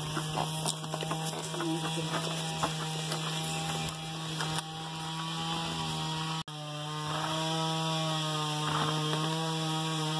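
A steady droning hum with overtones, like a small motor running, with scattered light clicks and knocks over it; the drone drops out for an instant about six and a half seconds in.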